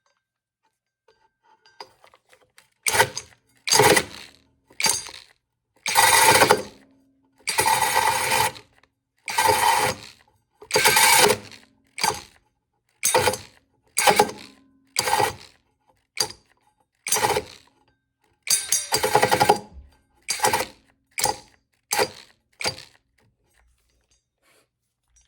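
Mellif 12-volt cordless drill driving a 5-inch hole saw into wood in about twenty short trigger bursts, each up to a second long with short pauses between, as the saw teeth cut and bind. It is run slow and feathered because the small drill stalls under the load.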